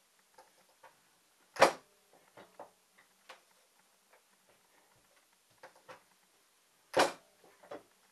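Springfield Leather Craftsmaster hand press punching holes through 6-ounce leather: two sharp clunks about five seconds apart, with light clicks and taps between them as the strip is moved along the rail guide.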